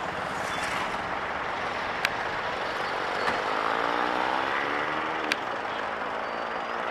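Steady expressway traffic noise. In the middle an engine note rises and then falls as a vehicle passes. A few sharp clicks are heard through it.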